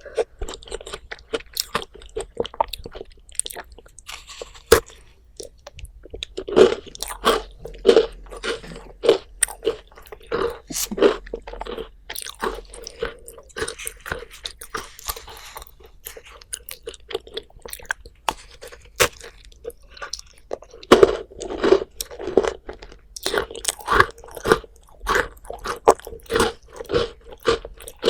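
Close-miked eating sounds: crunchy bites and chewing of dessert food, with sharp crunches over a steady chewing rhythm of about two chews a second that comes in two long runs.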